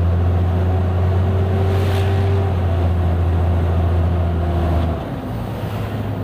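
Mercedes-Benz O-500U bus engine running with a steady low hum, dropping in level and shifting in pitch about five seconds in.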